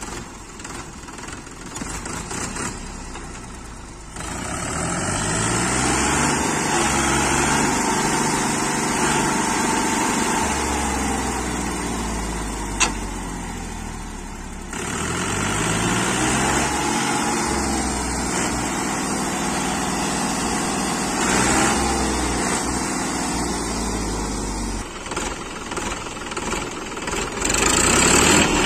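Mahindra 265 tractor's diesel engine straining under heavy load as the tractor, stuck in soft sand with a loaded trailer, tries to pull free. The revs rise and fall a couple of times, with a sharp click about halfway through.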